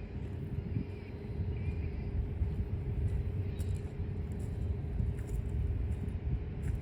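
Freight train rolling past: a steady low rumble with an even hum running under it.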